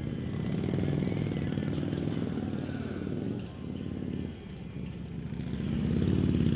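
Harley-Davidson police motorcycle V-twin engines running at low speed through tight turns, the engine note rising and falling with the throttle. It dips about midway and swells again near the end.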